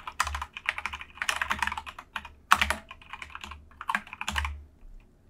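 Typing on a computer keyboard: a quick, uneven run of keystrokes entering a web address, stopping near the end.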